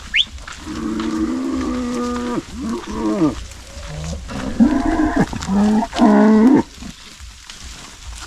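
Cattle mooing: several long, loud calls, some held and some falling away at the end, the last stopping about six and a half seconds in.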